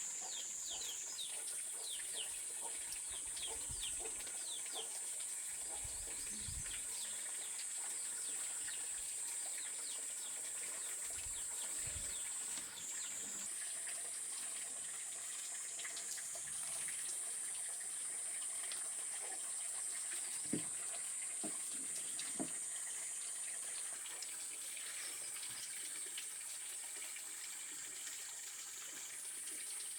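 Farmyard ambience: chickens and small birds calling over running or splashing water, under a steady high-pitched hiss, with a few soft thuds.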